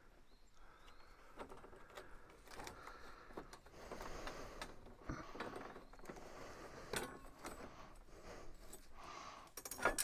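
Light metallic clinks, scrapes and rattles of a steel bandsaw blade being worked off the wheels of a Norwood portable sawmill, its tension released, with a sharper clank near the end.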